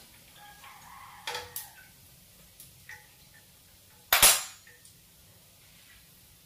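Metal tongs and a small strainer clinking against a steel wok, a few light clinks with one loud metal clatter about four seconds in.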